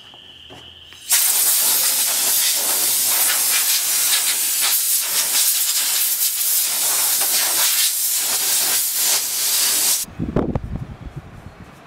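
A loud, steady hiss of a jet of air or gas from a hand-held tool worked over the carving, starting suddenly about a second in and cutting off near the end.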